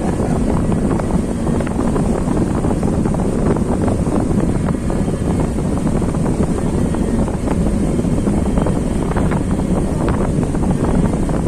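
Motorboat running at speed: a loud, steady rush of engine and water, with wind buffeting the microphone.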